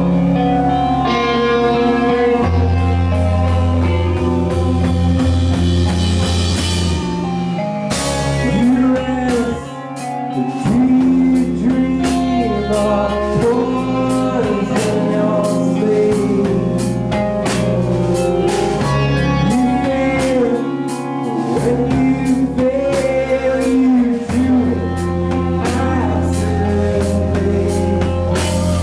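Grunge rock band playing loud: electric guitars, bass and a drum kit, with a singing voice over much of it.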